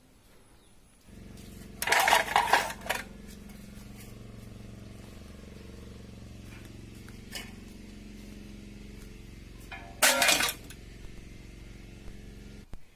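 A motor runs with a steady hum, starting about a second in and cutting off sharply near the end. Two loud bursts of clatter come over it, about two seconds in and about ten seconds in.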